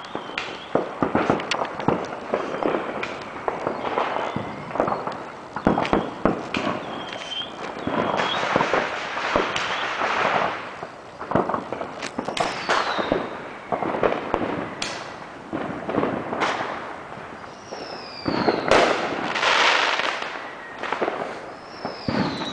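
Fireworks going off all around: a near-continuous run of firecracker pops and bangs, with a few whistling rockets whose pitch falls and a thicker burst of crackling near the end.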